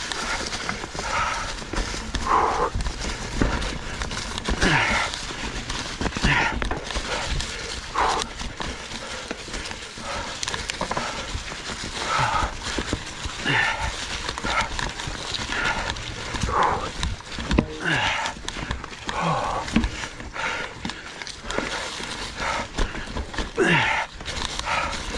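Ibis Ripmo full-suspension mountain bike rattling and clattering as it rides over a rocky trail, with low rumble from the ride. The rider breathes hard in short puffs every second or two.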